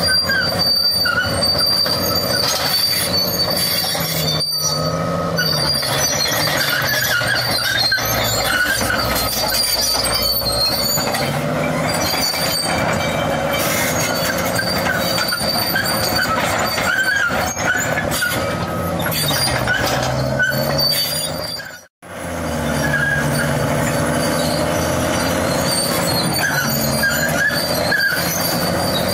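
Caterpillar D6 crawler bulldozer ripping sandstone: its diesel engine runs under heavy load, the pitch rising and falling, while the steel tracks squeal and clank. The sound cuts out for a moment about three-quarters of the way through.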